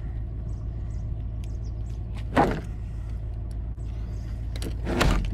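Steady low rumble of a running car, with a brief louder sound about two and a half seconds in and another near the end.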